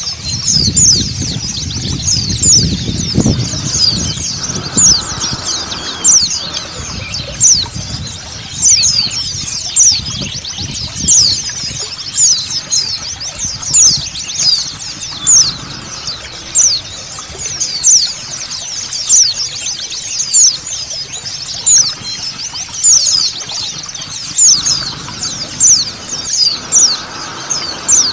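A flock of white-eyes (pleci) chattering, many short, high, down-slurred chirps overlapping in a constant twitter that swells about once a second, over the low hiss of running water.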